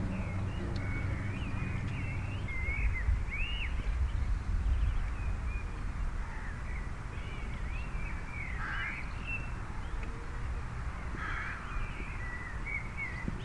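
Birds calling: a run of short chirps and warbling notes throughout, with a couple of harsher caw-like calls about two-thirds of the way in, over a low rumble of wind on the microphone.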